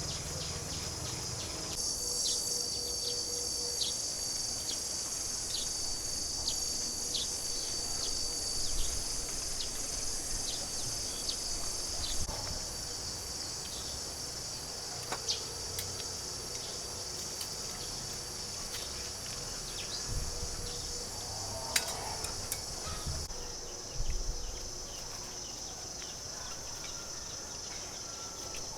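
A steady, shrill chorus of insects, with a few faint clicks and knocks. The chorus changes abruptly a few times.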